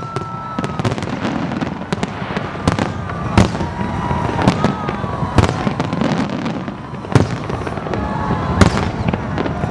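Fireworks display, shells bursting in a rapid, irregular run of bangs and crackles. The loudest bangs come about three and a half, five and a half and eight and a half seconds in.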